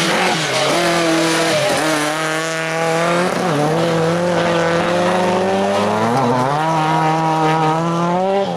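Folk-race car engines running hard at high revs through a gravel corner, the pitch dipping and climbing again several times.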